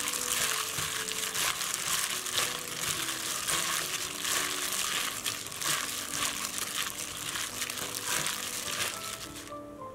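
Disposable plastic glove crinkling as a gloved hand tosses and squeezes sliced pickled cucumbers in seasoning in a glass bowl, a dense continuous rustle that stops near the end.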